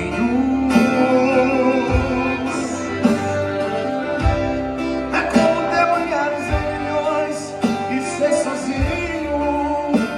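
Live-style Brazilian song with acoustic guitar, a steady beat, and a male singer's voice between lines.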